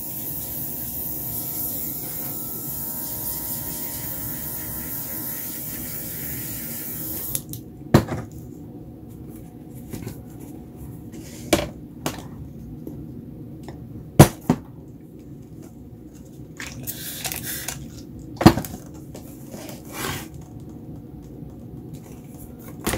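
Airbrush blowing a steady hiss of air for about seven seconds, then cutting off; it is being used to force thick, wet acrylic paint that will not move to spread across the paper. After it stops come several sharp knocks and taps, the loudest of them about halfway through.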